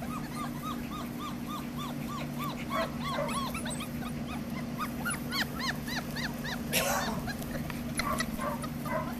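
Gordon setter puppies whining: a run of short whimpers, each rising and falling, about four a second. From about two and a half seconds in, several pups overlap at higher pitches. A brief rustle comes about seven seconds in.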